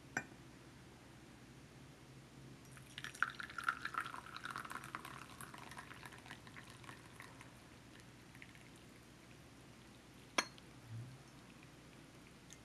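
Black tea poured from a ceramic teapot into a porcelain teacup: a splashing trickle that starts about three seconds in and thins out over the next few seconds. There is a sharp click at the start and another about ten seconds in.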